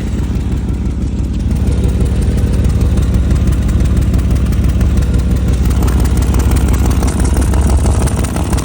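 A 2000 Chevy Tahoe's V8 idling, heard from underneath at the exhaust, with a steady rapid pulsing from an exhaust leak near the catalytic converter.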